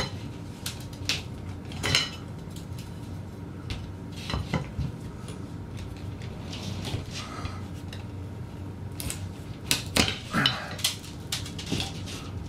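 A metal pry tool knocks, clanks and scrapes against an old ceiling electrical box as the box is pried down out of the drywall and its nails are worked loose from the joist. The knocks are scattered, with a loud one about two seconds in and a quick run of them near the end.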